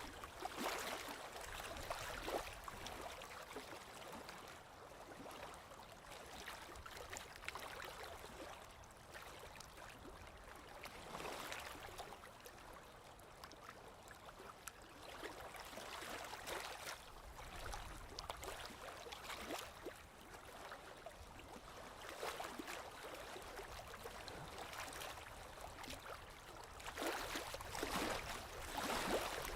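Small lake waves lapping against the shore in irregular splashes every few seconds, with louder splashes near the start and near the end.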